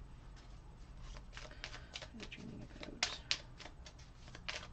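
A deck of oracle cards being shuffled by hand: a run of quick flicks and snaps of card stock, with the two sharpest snaps about three seconds in.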